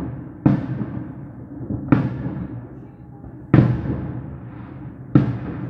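Fireworks shells bursting: four sharp booms about a second and a half apart, each dying away over about a second.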